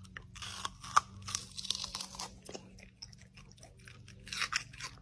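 A dog biting and chewing a slice of watermelon, many irregular crunches in quick succession.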